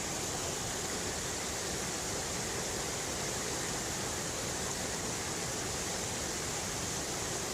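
Steady rushing of water from a multi-tiered cascading waterfall on a mountain river.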